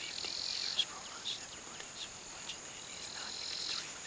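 Insect chorus of forest crickets: a steady high-pitched drone, with a lower buzz that sounds twice and scattered short chirps, the sharpest about a second in.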